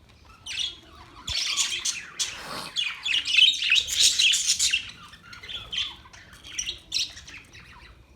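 Budgerigars chirping and squawking in a rapid chatter that starts about half a second in and is densest and loudest in the middle, then thins to scattered single chirps near the end.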